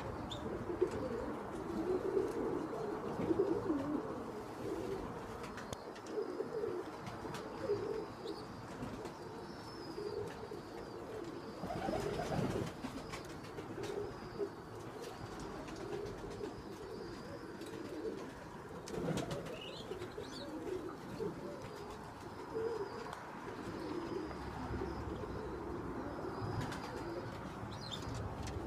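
Flock of Iranian domestic pigeons cooing continuously, many low coos overlapping, with faint high chirps now and then.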